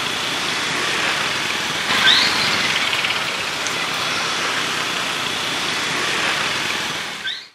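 Busy street traffic, mostly motor scooters: a steady hum of small engines and tyres, with a brief high-pitched sound about two seconds in and again just before it cuts off.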